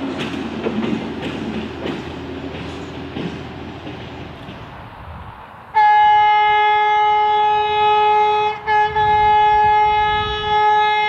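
Rail motor running away along the track, wheels clicking over the rail joints and fading. About six seconds in, a rail motor horn sounds a loud, steady single note, breaks off briefly, then sounds again until the end.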